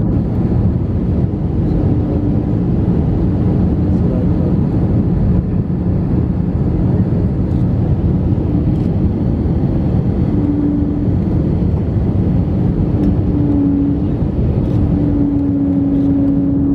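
Cabin noise inside an Airbus A319 on its descent to land: a steady rush of jet engine and airflow, with a hum that fades in and out and holds longest near the end.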